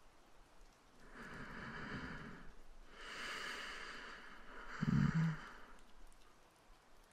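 A man breathing slowly and deeply close to the microphone: an inhale, a long sighing exhale, then another breath with a short low hum about five seconds in, the loudest moment.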